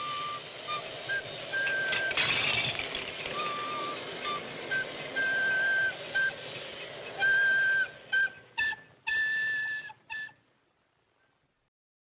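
A flute playing a slow melody of separate held notes over steady film-soundtrack hiss. A brief rush of noise comes about two seconds in, and a few sharper, louder high notes come near the end. The flute stops about ten seconds in and the sound fades out.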